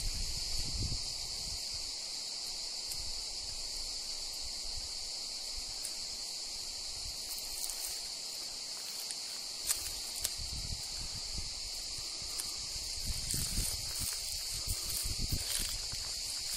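Steady, high-pitched drone of a cicada chorus, with low buffeting on the microphone and a few light clicks near the end.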